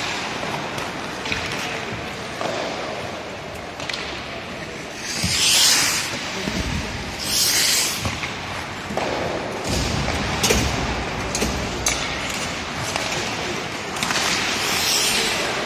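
Ice hockey play on an indoor rink: skate blades scraping the ice, with three loud hissing scrapes about five seconds in, a couple of seconds later and near the end, and sharp clacks of sticks and puck scattered through, echoing in a large hall.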